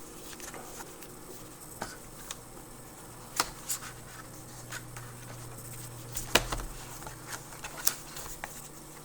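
Paper and plastic packaging being handled and opened by hand: scattered sharp clicks and crinkles, the loudest snap about six seconds in, over a faint steady low hum.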